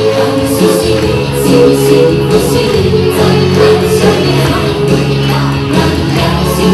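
Loud music with singing: the backing song for a group exercise routine.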